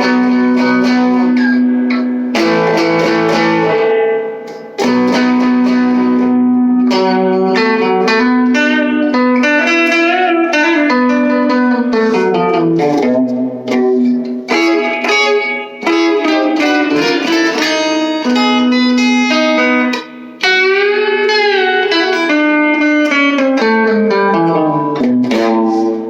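Electric guitar on its bridge pickup through a small all-tube amp with the gain at 4 and the guitar's tone knob at about 2, giving a crunchy, twangy overdrive. He opens with held chords, then plays a single-note lead line with string bends and vibrato.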